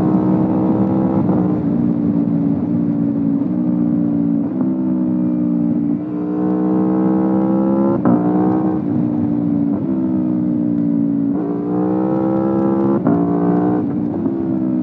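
Aprilia Tuono V4 Factory's V4 engine through an Akrapovic exhaust, pulling through the gears. Its pitch climbs under acceleration and drops sharply at each upshift, several times.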